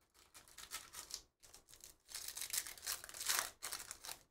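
Foil wrapper of a 2023 Topps Stadium Club baseball card pack crinkling and being torn open by hand. The rustle starts a moment in and is loudest in the second half.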